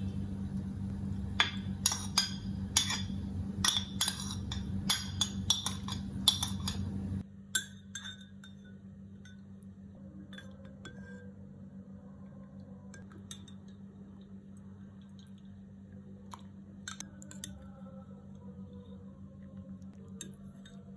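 A spoon clinking against a glass, many sharp clinks in quick succession over a steady low hum for the first seven seconds or so. The hum then stops suddenly, leaving only a few scattered light clinks and taps.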